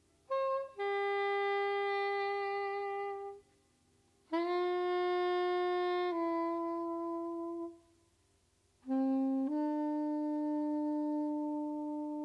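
Solo saxophone playing slow, long held notes with short silences between them, unaccompanied. There are three phrases: a brief lead-in note followed by a long tone, then a long tone that steps down partway through, then a short low note rising into a tone that is still held at the end.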